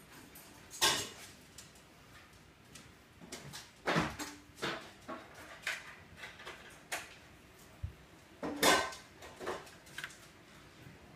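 Irregular taps, clicks and knocks of a tablet being handled and stood up against a plastic toy hockey rink, with two louder knocks, about a second in and near the end.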